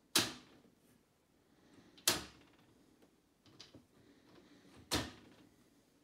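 Grey plastic fold-down shelves on a dishwasher's upper wire rack being flipped by hand, snapping into place with three sharp clacks a couple of seconds apart and a fainter click between the last two. The shelves are a little stiff to move.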